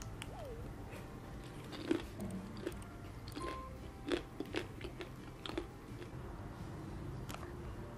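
Close-miked eating of an ice cream roll: a handful of crisp crunches and chewing sounds at uneven intervals, clustered between about two and six seconds in.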